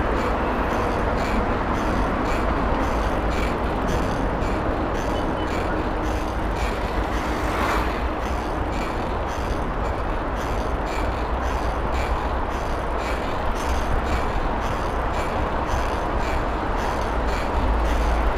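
Wind rumbling on the microphone and road noise from riding a bicycle along a street, with a faint, regular light ticking.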